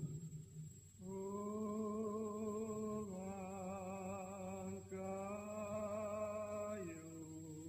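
Slow, chant-like sung melody in long held notes with vibrato, starting about a second in and moving to a new pitch every two seconds or so, stepping down near the end.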